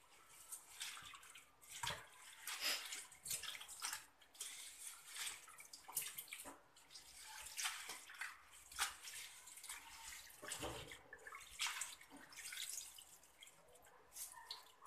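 Water splashing and sloshing in a plastic basin as hands swish, squeeze and lift cassava leaves to wash them, in irregular bursts.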